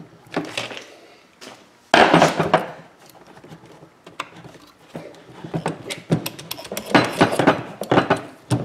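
Hands working a plastic sensor wheel off the steel output shaft of a gate-opener actuator's gearbox: a sudden loud knock about two seconds in, then a run of small clicks and knocks of plastic and metal parts being handled.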